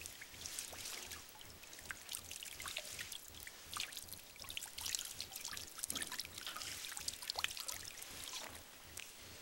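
Water splashing and sloshing in a shallow galvanized metal tub as a person in snowboard boots and waterproof ski trousers wades in it and lowers themselves down near the end. Many small splashes and drips, with some trickling.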